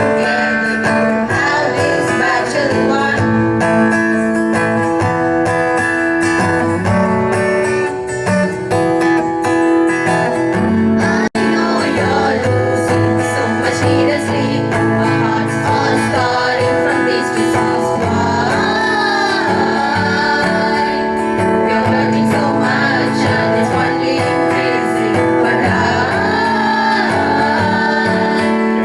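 A song played on strummed acoustic guitar, with voices singing over it. The sound cuts out for an instant about eleven seconds in.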